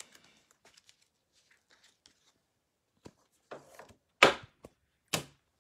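Trading cards in plastic sleeves and a cellophane-wrapped card pack being handled on a table: faint rustles, then a few short crinkles, the loudest two about a second apart near the end.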